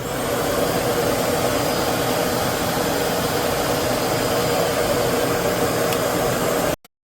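Shark Navigator Lift-Away NV356E upright vacuum cleaner running loudly and steadily, cutting off abruptly near the end.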